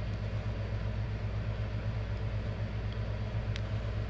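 Steady low mechanical hum with a fine, even pulse, like a motor or engine idling. A faint small click sounds about three and a half seconds in.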